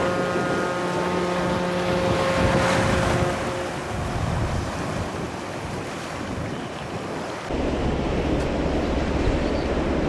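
A passing cargo ship's steady droning hum, which stops about three seconds in, over the rush of waves and wind noise on the microphone. A deep steady rumble starts suddenly near the end.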